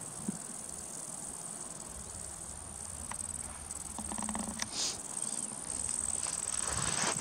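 Insects in tall summer grass chirring in a steady high-pitched drone, with a few faint knocks in the middle and a rising rustle near the end.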